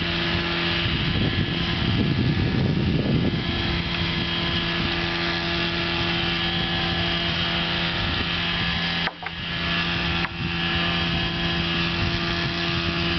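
A steady machine-like hum with a constant low pitch, rougher and rumbling for the first few seconds, briefly cutting out about nine seconds in.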